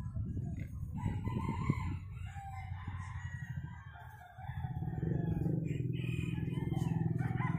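Rooster crowing. About four and a half seconds in, a steady low hum starts and becomes the loudest sound.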